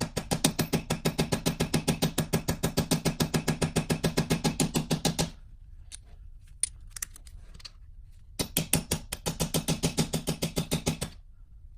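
Rapid hammer taps on a socket, driving a new pilot bearing into the end of a rotary engine's eccentric shaft, at about seven or eight taps a second, with a ringing of metal under them. One run lasts about five seconds. A few light knocks follow, then a second run of about three seconds, as the bearing is pushed in toward bottoming out.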